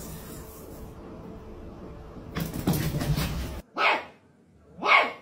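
A dog barks twice in the second half, two short sharp barks about a second apart.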